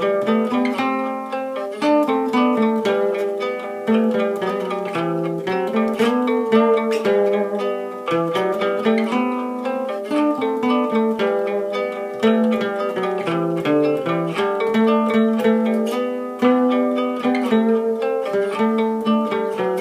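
Old Soviet acoustic guitar with steel strings, picked with a handmade plectrum: a quick improvised melody of single notes, many sharp attacks a second.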